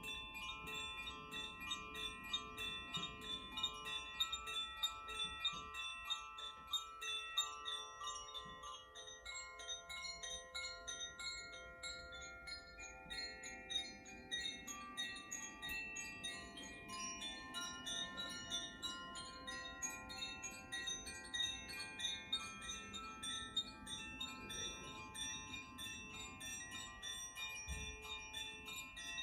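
Koshi chimes played softly, their clappers striking the tuned rods in a quick, unbroken tinkling that leaves many overlapping ringing tones at several pitches.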